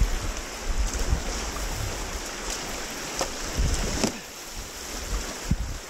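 Rushing whitewater of a river rapid, a steady roar of water with wind buffeting the microphone and a few sharp splashes about three and four seconds in.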